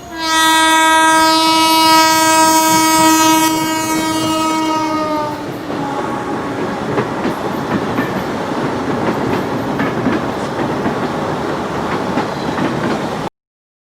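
Train sound effect: a locomotive horn sounds for about five seconds, its pitch dipping slightly as it ends, then the train's wheels rumble and clatter on the rails until the sound cuts off abruptly near the end.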